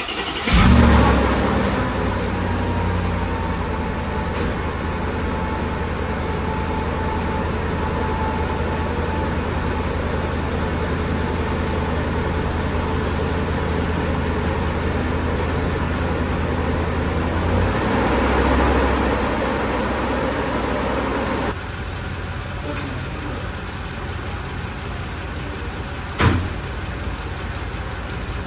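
Mercedes G-Class engine starting and settling into a steady idle, with a short rev about eighteen seconds in. The sound drops and changes suddenly about twenty-one seconds in, and a single sharp click comes near the end.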